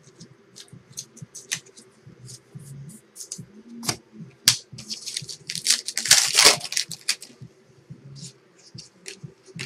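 Trading card packs being handled and a pack wrapper torn open: scattered crinkly snaps and clicks, with the loudest tearing and rustling about six to seven seconds in.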